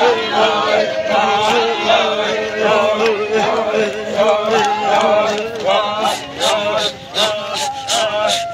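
A crowd singing a protest chant together, with men's voices carrying the tune. In the last two seconds a sharp beat, about three strikes a second, joins in.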